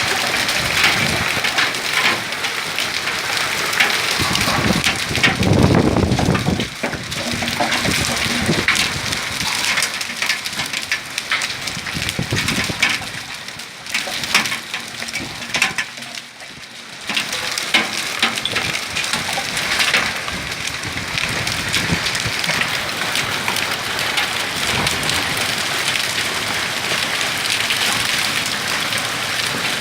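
Hailstorm: hailstones and rain pelting down in a dense clatter of many small hits. It eases briefly a little past halfway.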